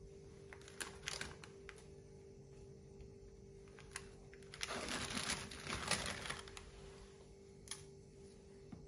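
Hands handling crisp square tea biscuits: small clicks and snaps as biscuits are set down and broken, with about two seconds of crinkling rustle in the middle. A faint steady hum lies underneath.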